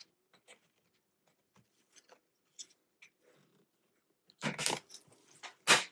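Plastic snap clips of a laptop's bottom cover being pried loose with a thin plastic pry tool: faint scraping ticks, then a crackling burst of releasing clips about four and a half seconds in and a single sharp snap near the end.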